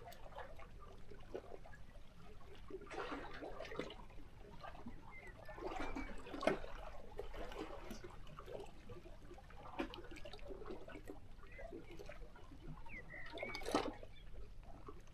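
Small sea waves lapping and splashing against shoreline rocks, in irregular surges every few seconds. A few faint bird chirps come through between them.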